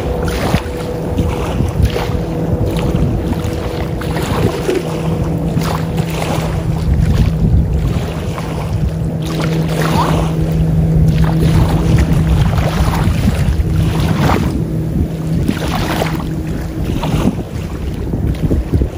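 Wind buffeting the microphone in loud, uneven gusts, with a steady low drone underneath that stops near the end.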